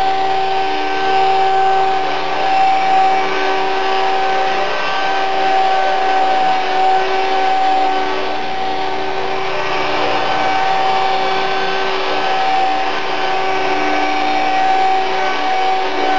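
Electric RC helicopter in flight: the Esky 005 CP2 with a King shaft-drive tail and a 3100 kV brushless motor. It gives a steady whine of the motor and gears, with the rush of the main rotor blades holding an even pitch throughout.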